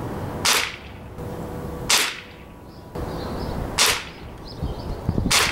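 Ruger Air Magnum spring-piston air rifle with a .177 barrel firing four shots, one every one and a half to two seconds. Each shot is a single sharp crack.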